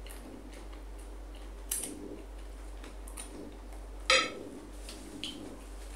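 A fork clinking and scraping against a plate of spaghetti a few times. The sharpest clink is about four seconds in.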